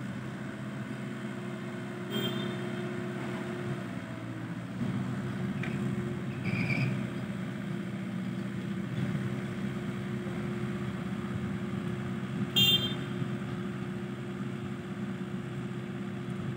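Mini excavator's diesel engine running steadily under load as it digs and swings, with two sharp metallic clanks from the digging gear, the louder one near the end.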